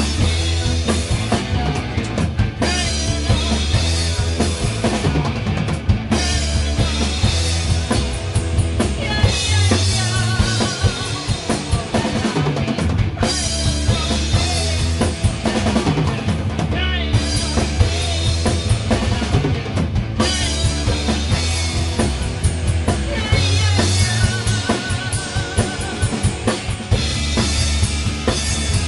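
Band playing a rock song: a drum kit with bass drum and snare keeping a steady beat under electric guitars.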